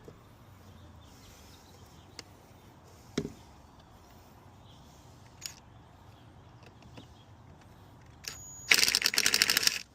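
A ratchet wrench clicking rapidly for about a second near the end, likely tightening a hose clamp on the leaking heater valve, after a few scattered single clicks and knocks.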